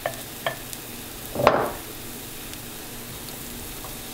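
Zucchini pancakes sizzling steadily in hot oil in a nonstick frying pan. A spatula knocks on the pan twice near the start and scrapes across it more loudly about a second and a half in, as it presses the batter flatter.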